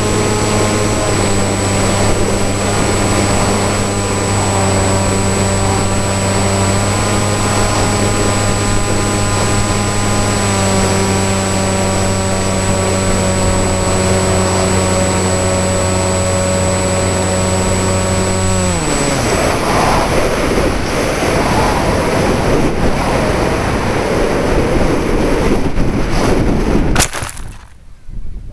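Brushless electric motor and propeller of a foam flying wing running at steady throttle, then throttled off about two-thirds of the way in, its pitch falling away. Rushing wind noise follows as it glides, and the sound drops away sharply near the end.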